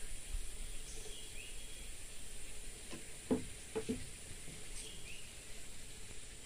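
Steady high-pitched insect drone, with a short rising chirp repeating about every four seconds and a few soft knocks near the middle.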